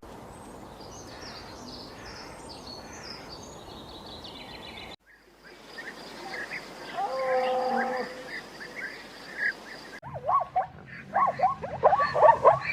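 A run of short animal sound clips: high chirping calls for about five seconds, a short pitched animal call after a cut, then rapid repeated short high calls from about ten seconds in.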